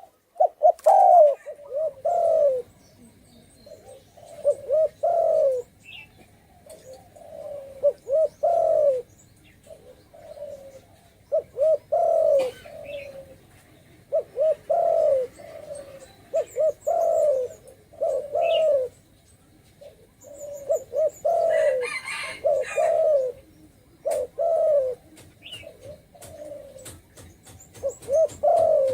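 Spotted dove cooing, phrase after phrase of low rolling coos with short gaps between them. A brief higher-pitched noisy sound breaks in about two-thirds of the way through.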